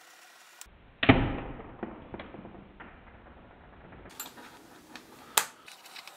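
A knock about a second in that dies away, then a few light clicks and taps as a small plastic part and a fine pointed tool are handled on a cutting mat.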